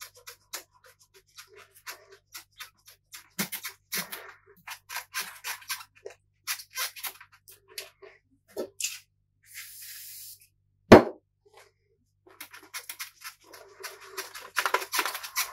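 Hand rubbing over the glossy plastic top cover of a PlayStation 3 console, making a run of short scratchy strokes. There is a brief hiss about ten seconds in and a single loud knock about a second later. Denser, steadier rubbing follows near the end.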